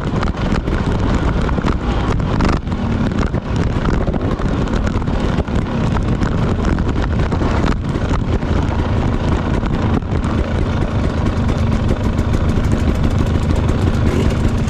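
Dirt bike engine running steadily under load while riding a singletrack trail, with a few brief dips in level.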